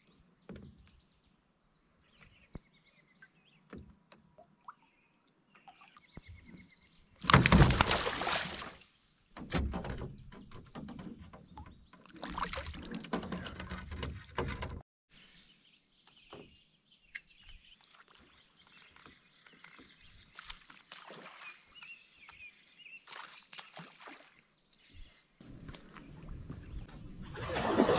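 Water splashing and knocks around a canoe while fishing, in separate bursts; the loudest comes about seven seconds in.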